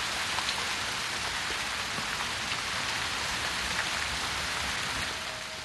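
Heavy rain pouring down, a steady, dense hiss.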